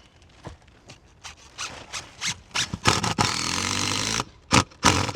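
Power drill driving screws into roof plywood decking to secure it: knocks and short bursts build up, then the drill runs steadily for about a second, followed by two sharp loud strikes near the end.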